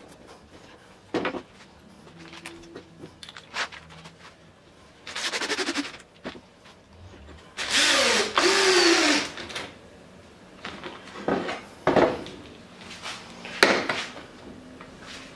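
Cordless drill driving a screw into a solid-wood block in two runs: a short one about five seconds in, then a louder, longer one about halfway through whose motor pitch falls as it runs. Sharp knocks of wood pieces being handled come between.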